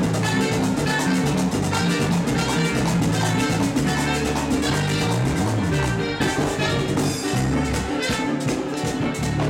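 Live merengue band playing at a brisk, steady beat: tambora drum, metal güira scraper, timbales and acoustic guitar over a moving bass line.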